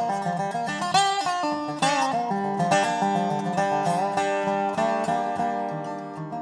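Bluegrass music with quick picked banjo and guitar.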